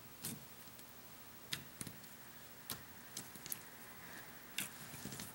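Faint, scattered clicks and small pops of clear putty being handled and stretched in the hands.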